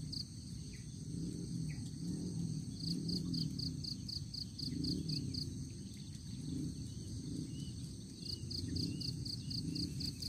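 Insects chirping in trains of quick even pulses, about five a second, each train lasting a couple of seconds and starting again every few seconds over a steady high insect drone. A wavering low hum runs underneath.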